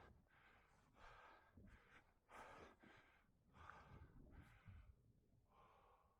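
A person's heavy, rhythmic breathing, a faint in-and-out panting of roughly one breath a second, typical of someone out of breath from climbing.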